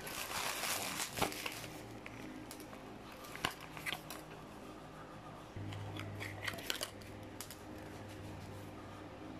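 Plastic wrap and a small cardboard box crinkling and rustling as they are handled and opened, with scattered light clicks. A low steady hum comes in about halfway through.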